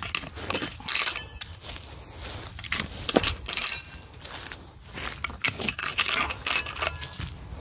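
Metal tent stakes clinking and scraping as they are worked out of the ground with the hook of a tent hammer: a scatter of sharp metallic clinks.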